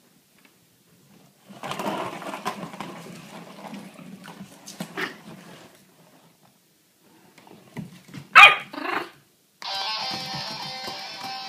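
Pomeranian puppy giving two sharp high barks about eight seconds in, after a few seconds of low rough noise. Music with steady tones starts shortly after the barks.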